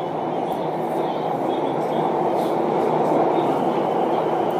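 Bangkok MRT Blue Line metro train running, heard from inside the carriage as a steady noise that grows slightly louder.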